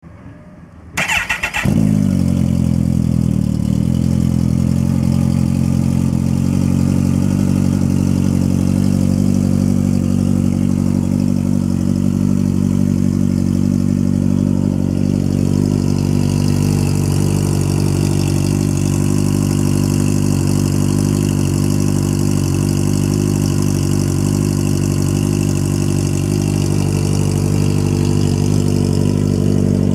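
Kawasaki ZX-14R's inline-four engine cranked on the electric starter, catching after about a second, then idling steadily on a cold start through an Extremeblaster XB08/XB06 dual slip-on exhaust.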